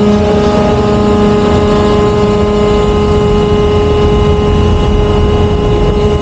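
Ship's steering gear machinery running: a loud, steady drone of pump motors, with a steady whine of several even tones over a low rumble.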